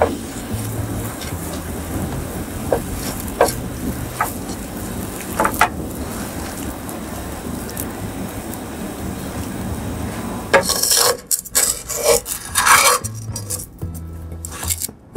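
A sandwich toasting quietly in a ridged grill pan, with a few faint clicks. About ten seconds in come loud, irregular scraping and rubbing strokes as the crisp toasted bread and a spatula scrape across the pan's ridges while the sandwich is turned.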